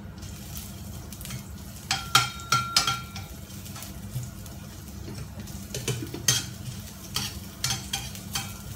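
Metal spatula scraping and clinking against a stainless steel wok while stirring ginger frying in hot oil, with a light sizzle. Clusters of sharp scrapes come about two seconds in and again around six seconds, over a steady low hum.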